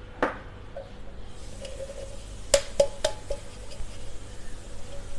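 Metal cake pan being handled and tapped while its greased inside is dusted with flour: one knock just after the start, then three sharp knocks in quick succession about halfway through.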